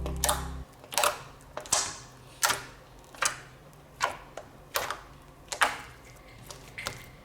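Homemade slime being squeezed and poked, giving a series of sharp popping clicks about once every three-quarters of a second.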